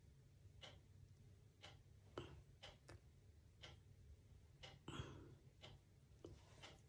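Near silence: faint, evenly spaced ticking about once a second over a low steady hum, with a slightly louder click about five seconds in.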